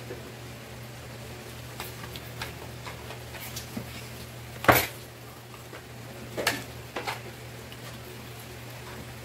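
Spoon and fork clinking and scraping against plates while eating, a few scattered clicks with the loudest about halfway through, over a steady low hum.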